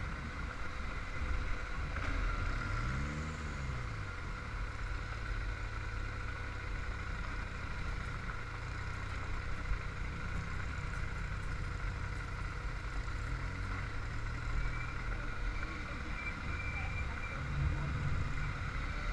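Motorcycle engine running while riding, with a steady low drone and wind rush; the revs rise and fall briefly twice.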